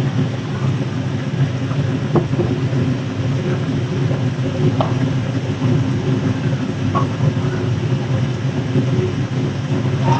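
Tofu frying in a pan of oil until brown, over a steady low mechanical hum, with a few light clicks of a utensil about two, five and seven seconds in.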